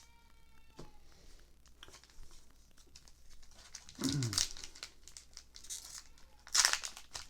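Foil booster-pack wrapper crinkling and tearing in short bursts, the loudest near the end, as a Pokémon card pack is opened. A cat's meow trails off at the very start.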